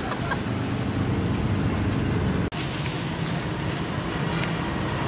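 Steady low rumble and hum of background noise, broken by a sudden brief dropout from an edit cut about two and a half seconds in.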